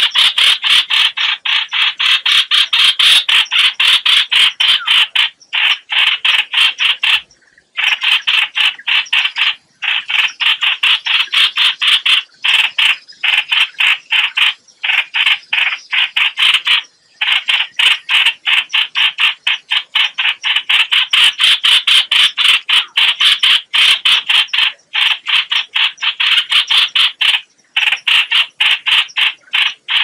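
Chao chảo bulbul giving harsh distress calls: rapid scolding notes, several a second, in runs of a few seconds broken by short pauses.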